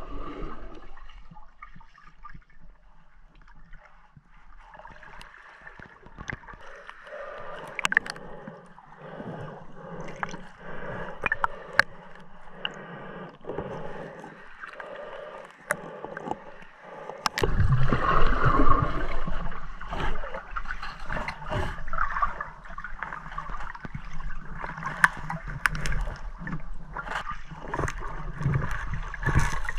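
Water gurgling and sloshing around a snorkeler's camera, with scattered sharp clicks and knocks. It grows much louder and heavier a little past halfway.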